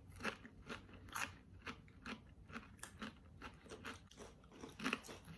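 Doritos Ultimate Cheddar tortilla chips being chewed: faint, irregular crunching, several crunches a second.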